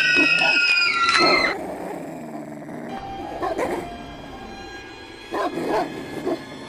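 A long high cry, falling slightly in pitch, ends about a second and a half in. Then dogs bark a few times, the barks spaced apart, over a faint steady musical drone.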